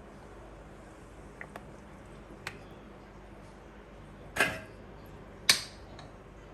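Kitchen utensils knocking during stovetop cooking: a few light ticks, then two sharp knocks about a second apart, the second the loudest, over a faint steady background.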